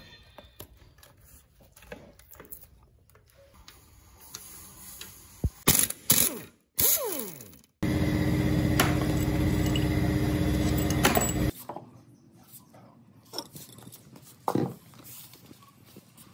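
Metal tools clinking and clicking on a car engine's cylinder head as it is unbolted, with a small motor running steadily for about four seconds midway, starting and stopping abruptly.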